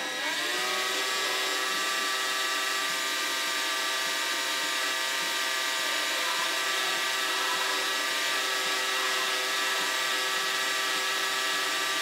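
Cordless drill with a small bit boring into the steel end of a hydraulic lift cylinder. The motor speeds up as it starts, then runs at a steady pitch under load.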